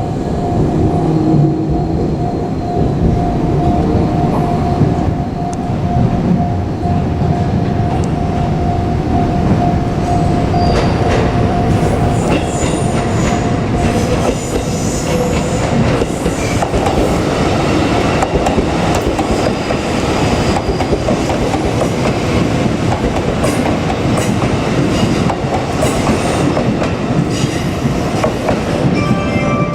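A JR Kyushu 787 series electric express train running past, with a steady tone through its first half. From about ten seconds in, a long run of clacks from the wheels over the rail joints.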